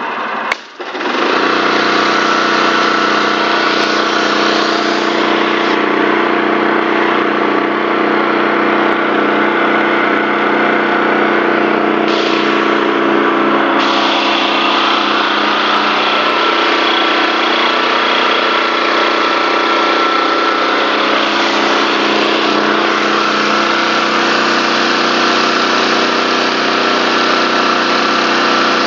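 Honda engine of a Kränzle B 270 T pressure washer running steadily, with the hiss of the high-pressure water jet from a rotary nozzle striking paving stones. There is a brief break in the sound about half a second in.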